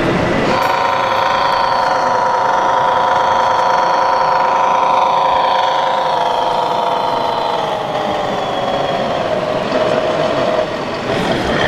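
Simulated diesel truck engine sound from an RC model truck's sound module, running steadily and then dropping in pitch from about six seconds in.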